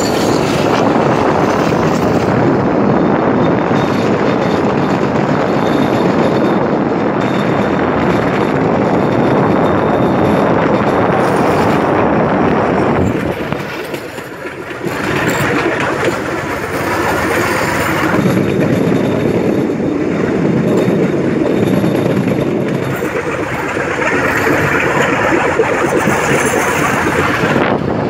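Bamboo train (norry) running along the rails, giving a steady loud noise from its small engine and its wheels on the track. The noise drops briefly about halfway through, then picks up again.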